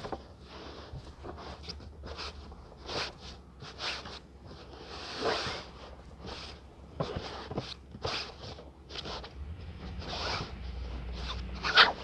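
Hands rubbing and scrunching a crumpled cloth garment: irregular fabric rustles and scrapes, with a sharper, louder rustle near the end.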